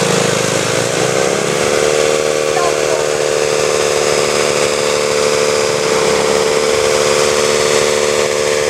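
Winch on a stuck off-road 4x4 pulling under load: a whine that rises over the first second or two, then holds a steady pitch, with the truck's engine running underneath.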